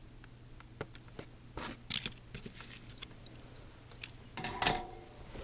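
Scattered small clicks, taps and scrapes of hands handling a dashcam's small battery, wires and soldering tools, with a louder brief scrape about four and a half seconds in.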